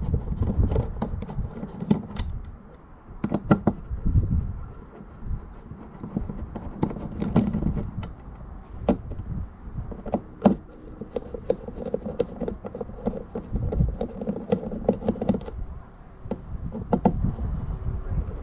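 Metal mounting bracket and bolts being handled and fitted onto a plastic kayak hull: a scatter of short clicks, taps and knocks, some sharp, over low handling rumble.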